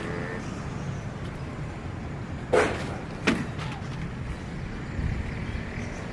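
Two sharp knocks, about two-thirds of a second apart near the middle, over a steady low rumble.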